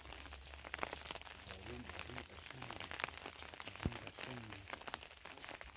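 Faint, indistinct voices speaking briefly twice, over scattered light clicks and crunches and a low steady rumble.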